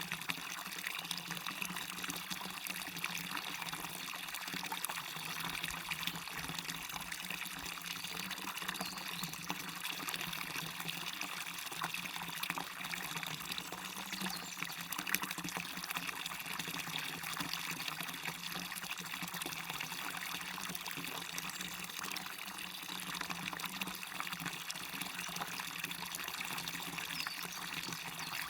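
Waterfall: water falling and splashing in a steady, even rush that stays constant throughout.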